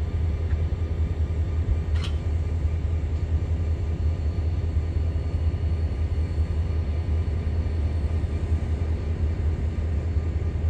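Diesel freight locomotives running, a steady low rumble, with a short click about two seconds in.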